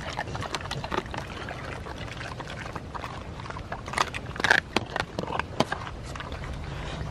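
Dogs eating from a feeding tray: scattered clicks and knocks, with a louder noisy burst about four seconds in.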